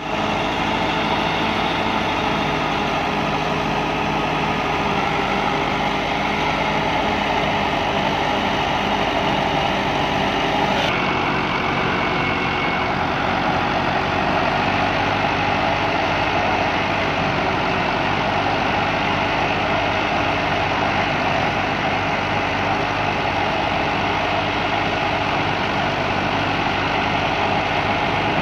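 Massey Ferguson 265 tractor's three-cylinder diesel engine running steadily under load, driving a wheat thresher whose drum and fan run along with it. The mix shifts abruptly about eleven seconds in.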